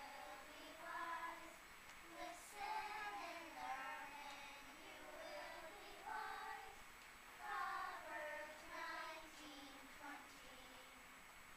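Children's choir singing, faint, in phrases with short breaks between them.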